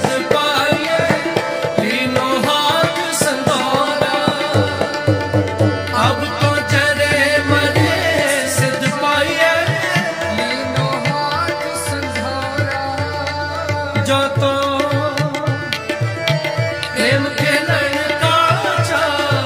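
Sikh kirtan: a man singing a shabad with harmonium and a fast, dense tabla accompaniment.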